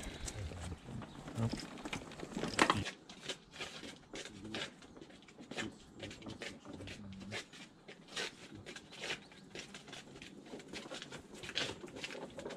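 Footsteps and the small wheels of a hand trolley rolling over a brick path, close and louder for the first three seconds. After that, quieter scattered footsteps, taps and clicks.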